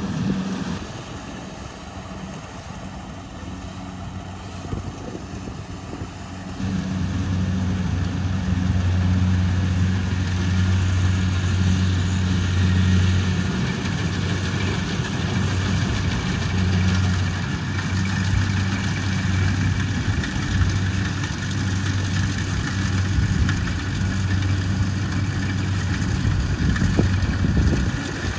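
Kubota rice combine harvester's diesel engine running steadily with a low hum, under a wide mechanical noise. It gets much louder about six seconds in and stays loud.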